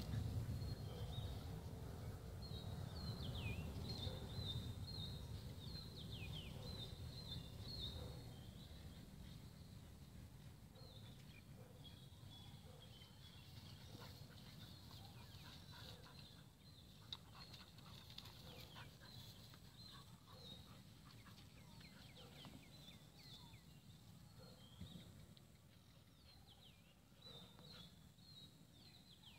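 Faint birdsong: many short chirps and quick downward-sweeping calls from small birds, scattered throughout. A low rumble underneath at first fades away over the first ten seconds or so.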